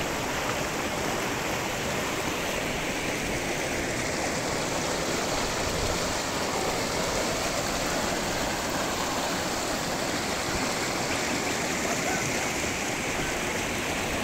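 River water running: a steady, unbroken rush of flowing water.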